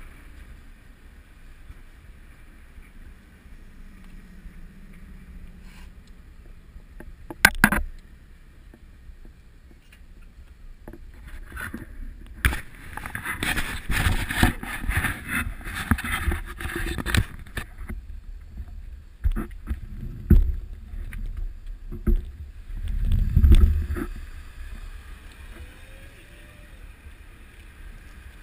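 Wind rushing over a bicycle-mounted action camera with low road rumble, broken by knocks and rattles from the ride: a sharp knock a little past 7 seconds in, a loud stretch of dense rattling and buffeting in the middle, and two heavy thumps later on.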